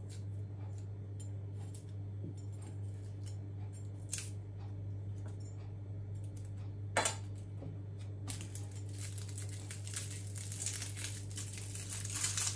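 Shallots being peeled with a kitchen knife: small clicks and scrapes of the blade, then from about eight seconds in a dense crackling and tearing of dry papery skin. A sharp tick comes about seven seconds in, and a steady low hum runs underneath.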